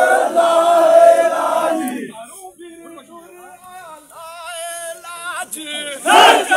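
A crowd of men chanting in unison, then a single voice singing a line alone, answered about six seconds in by the loud group chant again. It is a call-and-response work chant of men hauling a heavy load together.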